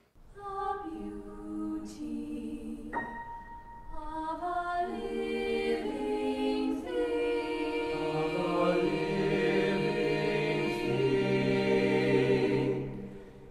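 A choir singing slow, held chords that build to a fuller, louder sound over the middle of the stretch and fade away near the end.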